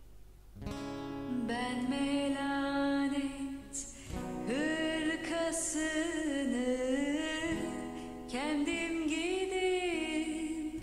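A song with a singing voice, played back from the editing timeline, starting a little under a second in.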